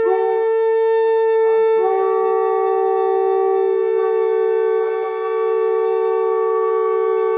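Conch shell (shankh) blown in a long, loud, steady blast at the close of an aarti. A second, slightly lower tone joins about two seconds in, and both hold on together.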